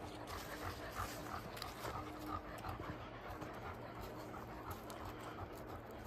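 A dog panting steadily, with footsteps on a dirt trail.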